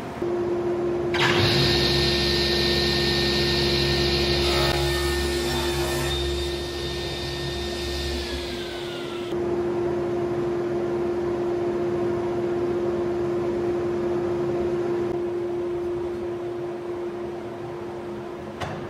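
Minimax SC 4 Elite sliding table saw running with a steady whine while a wooden board is pushed through the blade on the sliding carriage. A louder whirring layer starts about a second in and winds down, falling in pitch, around eight or nine seconds in.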